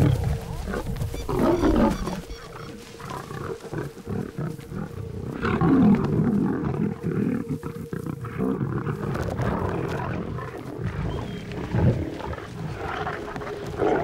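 Lions growling in several loud, rough bouts as they pull down and feed on a warthog kill.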